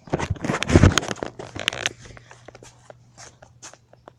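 Rustling and crackling handling noise from the recording iPad being moved about, with many sharp clicks, heaviest in the first two seconds and then thinning to scattered clicks.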